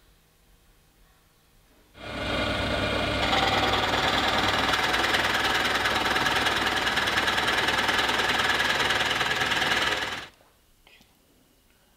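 Drill press running steadily with a large bit boring into cherry wood, a motor hum with a rattling cut. It starts abruptly about two seconds in and stops about two seconds before the end.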